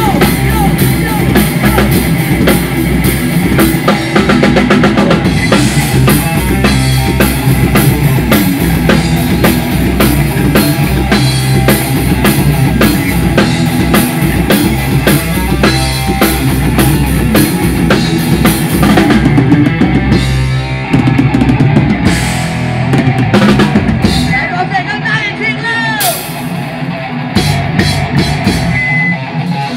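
Drum kit played hard in a heavy metal song, with drums and cymbals driving a fast beat under distorted electric guitar. About three-quarters of the way through, the low end drops away for a few seconds, leaving guitar with bending notes and cymbal hits.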